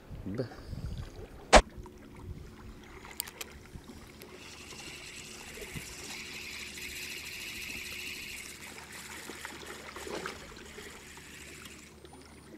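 A sharp click, then a spinning fishing reel cranked steadily for about ten seconds, reeling in a line whose crab bait has been picked clean by fish.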